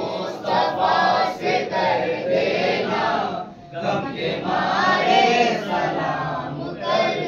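Men's voices singing an Urdu devotional salaam together as a slow chant, with a brief pause for breath about three and a half seconds in.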